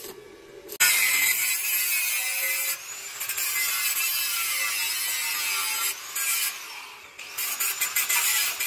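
Electric angle grinder biting into a steel square-tube frame. The grinding starts about a second in and eases off briefly twice, near three seconds and again around six seconds, before it resumes.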